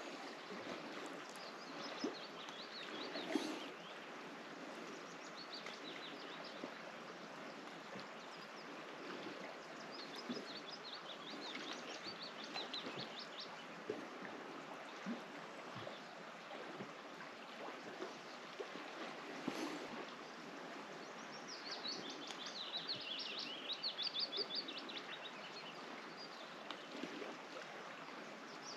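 Small songbirds singing in rapid trilling phrases, the loudest near the end, over a steady outdoor hiss of wind and water. A few soft knocks come through, one about three seconds in.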